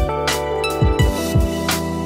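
Background music with a steady drum beat under sustained held chords.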